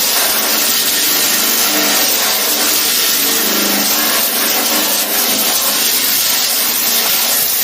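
Grinder running steadily, lightly grinding paint and rust off the steel body panel of a DKW Schnellaster van to show up its high and low spots.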